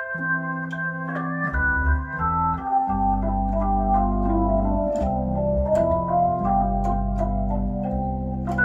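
Hammond H112 tonewheel console organ being played: held chords in the middle range, joined about a second and a half in by a deep sustained bass line from its string-bass voice.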